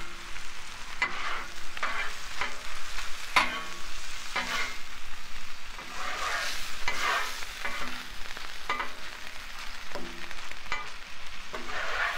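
Metal spatula scraping across the steel top of a Blackstone griddle in repeated, irregular strokes, pushing rendered grease away from browning ground beef. Under the strokes the beef sizzles steadily.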